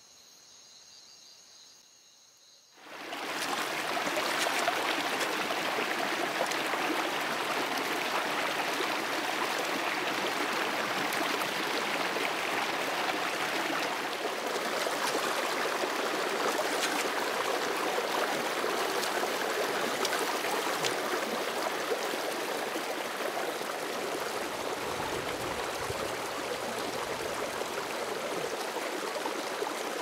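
A stream of water flowing steadily, a continuous rushing that starts about three seconds in, after near silence.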